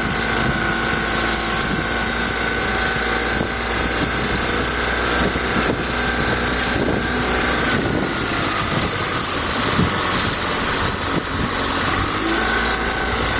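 Boat motor running steadily over a constant rushing hiss; the motor slows about two-thirds of the way through and picks up again near the end.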